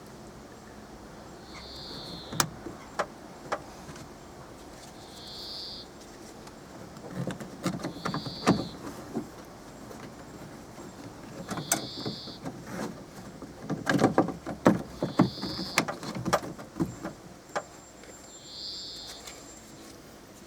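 Hand work on a car door: irregular sharp clicks, knocks and rattles of the door trim panel and lock parts being handled and fitted. Throughout, a short high chirp repeats about every three seconds.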